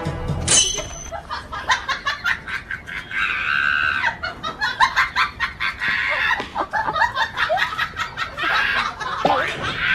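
Chickens squawking and clucking in agitated, irregular bursts during a scuffle with a dog, with some longer drawn-out squawks.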